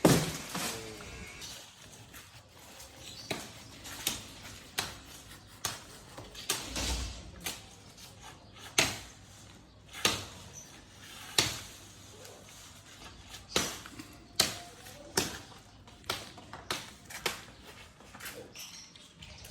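Blade chopping into wood by hand: a long series of sharp strikes at irregular intervals, roughly one a second, some louder than others.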